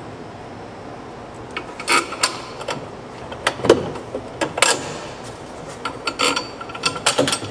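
Irregular sharp clicks and knocks of hand tools and metal parts being handled and fastened, in small clusters rather than a steady rhythm.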